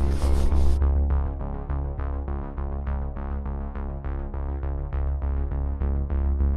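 Electronic background music: sustained synthesizer chords over a pulsing bass, with notes struck about four times a second.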